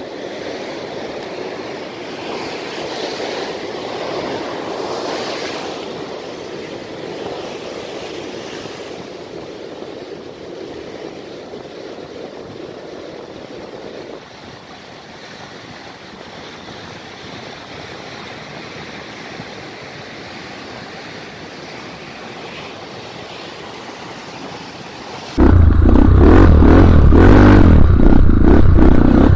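Surf breaking and washing in over a beach, a steady rush that swells for a few seconds near the start. About 25 seconds in it cuts suddenly to a much louder motorcycle engine running and clattering over a rough dirt track.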